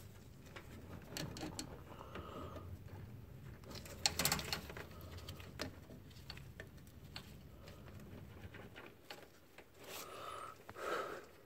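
Faint clicks and scraping of a hand handling metal brake lines and their coiled spring guards, with one louder click about four seconds in, over a faint low hum that fades near the end.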